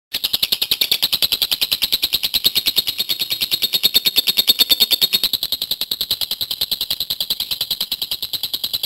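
Lovebird in full song, giving a long, unbroken 'ngekek' chatter: a fast run of high, shrill notes, about ten a second, held without a pause.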